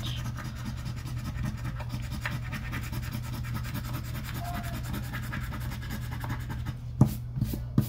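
A coin scraping the coating off a scratch-off lottery ticket in rapid strokes, over a steady low hum, with two sharp taps near the end.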